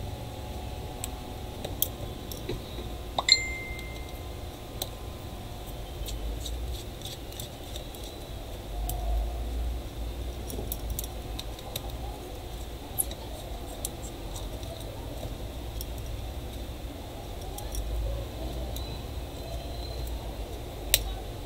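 Scattered small clicks and taps of hand tools working on a smartphone's frame and display on a silicone repair mat, with one short ringing clink about three seconds in. A low steady rumble runs underneath.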